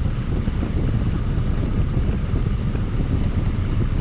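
Steady rush of air from the 2008 Cadillac CTS's HVAC blower on heat, with air buffeting the microphone in the driver's footwell and the engine idling underneath.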